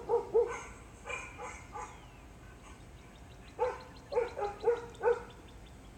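A dog barking in short, repeated barks: two loud barks at the start, a few softer ones about a second in, then a run of about five loud barks in the second half.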